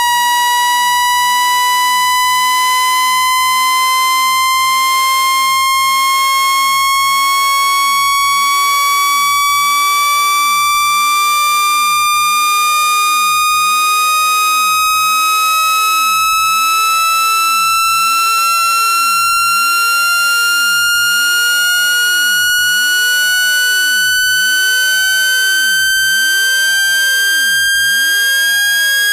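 Steady electronic test tone with overtones, gliding slowly and evenly upward in pitch without a break. It is a speaker-cleaning sweep, played loud to shake water and dust out of a phone speaker.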